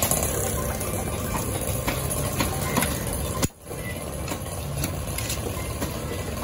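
Cleaver and knife working a conch shell on a wooden log chopping block: scattered sharp knocks and taps over a steady low rumble. The sound drops out for a moment a little past halfway.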